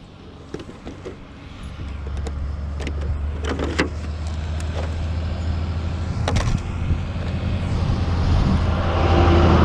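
A box truck's engine approaching on the road, a low hum that keeps growing louder and swells into a rush of engine and tyre noise near the end. A few sharp clicks and knocks sound over it in the first half.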